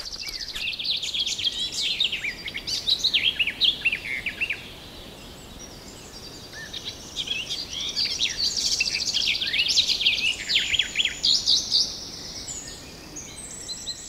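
Small songbirds singing and chirping: rapid high trills and down-sweeping notes in two busy bouts, the first stopping about four and a half seconds in and the second starting a couple of seconds later and thinning out near the end.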